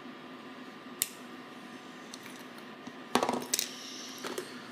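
Small hard parts and tools handled on a workbench. A single sharp click comes about a second in, then a brief clatter of hard objects a little after three seconds in, and a few lighter taps near the end.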